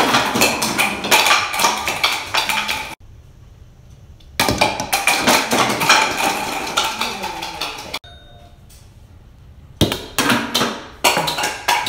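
Hollow plastic toy bowling pins knocked down by a small ball, clattering and bouncing against each other and on a wooden tabletop. The clattering comes in three bursts with short quiet breaks between them.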